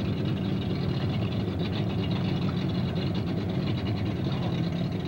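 Motorboat engine idling steadily, a constant low hum over the lapping of choppy water.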